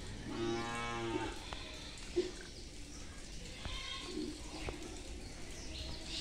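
One long, low, steady animal call lasting about a second, starting just after the beginning, followed by a few faint clicks and short calls.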